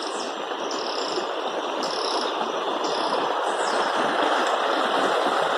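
Running water, a steady rushing hiss that slowly grows louder and covers the birdsong. Above it, short high chirps repeat about once a second, with a few faint falling whistles.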